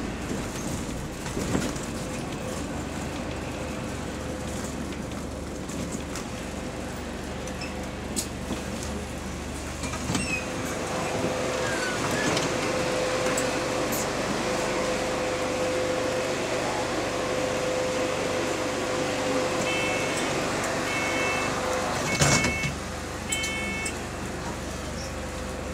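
Inside a bus: the steady hum of the engine, with the electric radiator cooling fans whining at one steady pitch for about ten seconds while it stands at a stop. Near the end, four short door warning beeps sound, and the doors shut with a sharp burst of noise.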